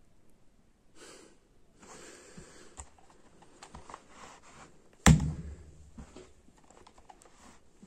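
A bare fist punching a small alarm clock on a carpeted floor: one sharp, heavy thud about five seconds in, after a few seconds of quieter handling and rustling of the clock.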